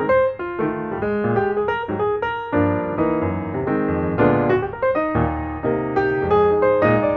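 Background piano music: a quick run of notes over lower chords.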